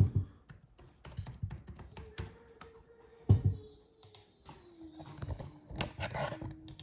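Laptop keyboard being typed on: irregular key clicks, with two louder knocks, one right at the start and one about three seconds in.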